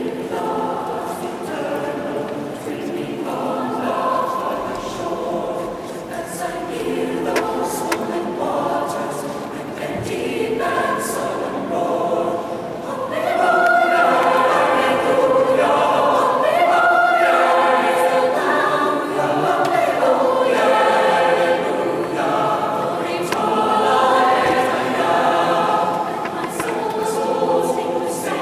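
Mixed youth choir singing in a large stone cathedral, sustained chords growing louder about halfway through.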